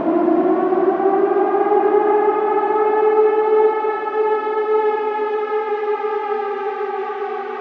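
Air raid siren wailing: it finishes its rise about half a second in, holds a long steady high wail, and begins to wind down near the end.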